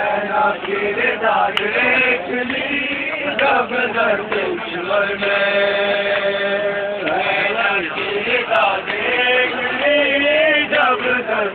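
Male voices chanting a Shia Muharram lament (noha), with long held, wavering notes.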